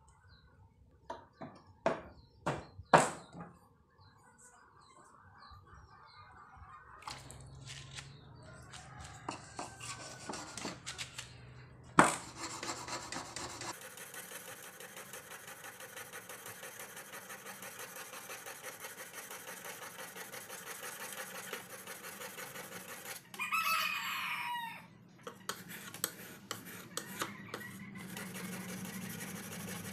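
A rooster crows once, a pitched call of about a second and a half about two-thirds of the way through. Before it come a series of sharp knocks, the loudest about twelve seconds in. Under the second half runs a steady, finely rhythmic noise.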